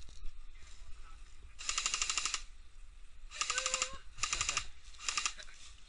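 Airsoft electric guns firing on full auto in four short bursts, the first about a second and a half in and the others close together near the end.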